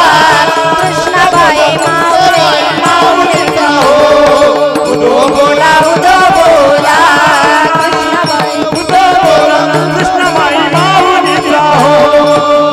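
Voices singing a Marathi Warkari devotional bhajan with a loud, held, ornamented melody, accompanied by steady strikes of small hand cymbals (tal) and a drum.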